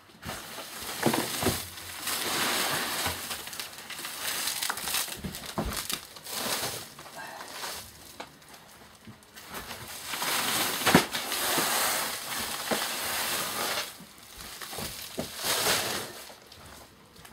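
Heavy sacks being shifted by hand on a tabletop: several stretches of rustling and scraping with a few knocks, the loudest one a little past the middle.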